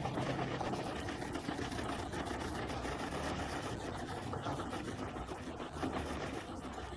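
An engine running steadily with a low hum under a mechanical rumble.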